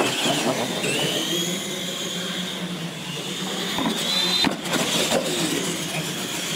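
Radio-controlled monster trucks racing on a concrete floor, their electric motors giving a high whine that climbs in pitch as they accelerate. A few sharp knocks come around the middle.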